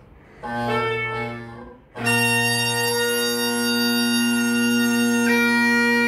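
Great Highland bagpipe striking in: the pipes sound briefly, die away, then come in again about two seconds in with the drones and a chanter note held steady. The chanter moves to another note about five seconds in.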